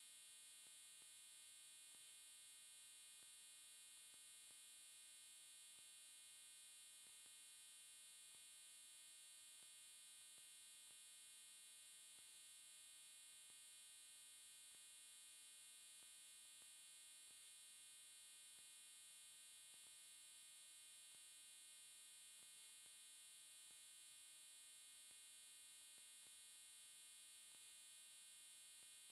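Near silence: only a faint, steady hiss and hum.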